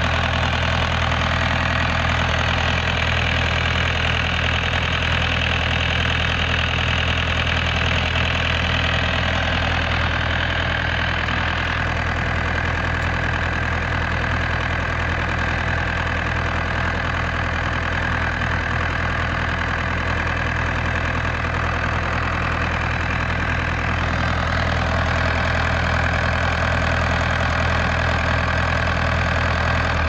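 Diesel engine of a 16 kVA standby generator running steadily at constant speed, a strong low hum with a rattly mechanical clatter over it.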